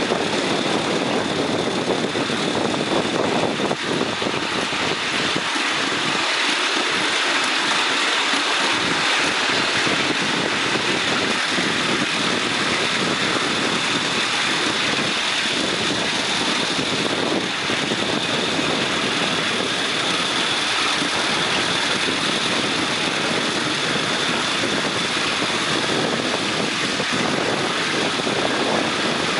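Miniature live-steam locomotive, a model of BR Britannia 70022 Tornado, hauling the riding car along the track, heard from just behind it: a steady rushing run noise with a thin high hiss over it, without a break.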